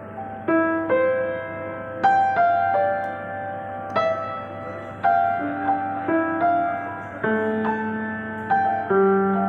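Yamaha acoustic grand piano playing a slow piece: chords and single melody notes struck roughly once a second, each left to ring into the next.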